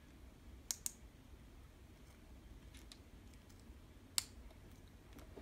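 Small plastic LEGO pieces clicking as they are handled and pressed together by hand: two quick sharp clicks under a second in, a faint one near the middle, and another sharp click a little after four seconds, over quiet room tone.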